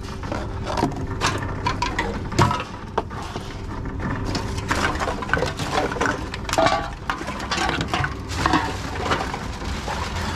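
Empty aluminium cans and plastic bottles clinking, rattling and crinkling as they are handled in a wire shopping trolley and pushed into a reverse vending machine, with many short knocks throughout. A steady low hum runs underneath.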